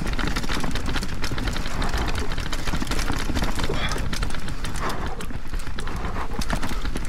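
Propain Spindrift aluminium enduro mountain bike descending a rough natural trail at speed: tyres rumbling and knocking over uneven ground, with the chain and frame rattling in a dense, irregular clatter. Wind rushes over the microphone throughout.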